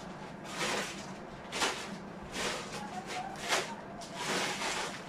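Plastic packaging and cardboard rustling as goods are dug out of a large shipping box, in repeated short swishes about once or twice a second.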